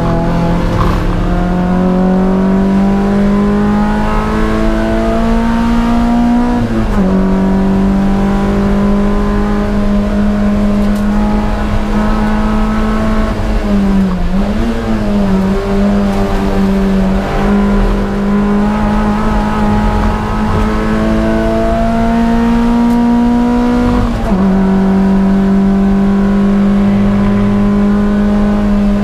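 Toyota MR2 race car engine at racing revs, heard from inside the cockpit over road and wind noise. The pitch creeps up slowly along the straights and drops sharply at gear changes about 7 and 24 seconds in, with a brief dip and wobble in revs around the middle.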